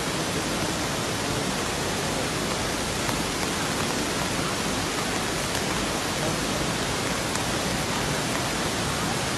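Ravana Ella waterfall in flash flood: a steady rush of water, swollen and muddy from heavy rain upstream.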